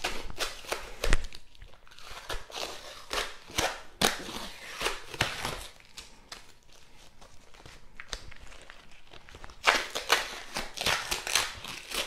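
Paper wrapping being pulled and torn off a small clamp by hand: irregular crinkling and tearing, with a quieter spell in the middle and a busier run of crackles near the end.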